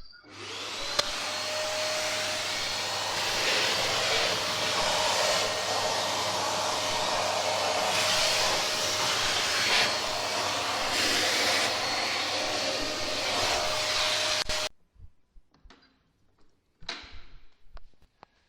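Eureka Forbes Trendy Nano vacuum cleaner starts up, reaching full speed within about a second. It runs with a steady whining suction noise whose level shifts a little as it is used, then stops suddenly about fifteen seconds in. A few faint knocks follow.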